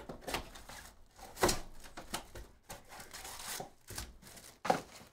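A cardboard trading-card hobby box being handled and opened, and the stack of wrapped card packs slid out of it: irregular rustling, scraping and light knocks, the loudest about a second and a half in and another near the end.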